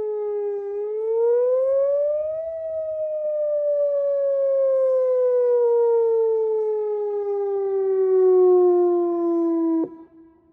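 Whelen Vortex R4 electronic outdoor warning siren sounding a slow wail: the tone dips, rises over about two seconds, then falls slowly for about seven seconds before cutting off suddenly near the end, with a faint tone lingering briefly. This is the close of its three-minute wail test signal, and the uploader puts the siren's sound down to bad speaker drivers.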